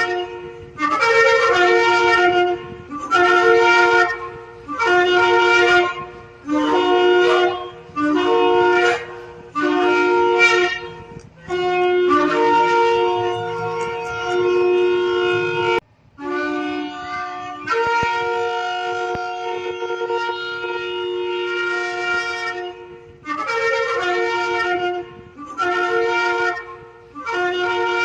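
Shofar blowing: a run of short blasts about a second apart, each jumping up from a lower note to a higher one, then two long held blasts in the middle, then short blasts again.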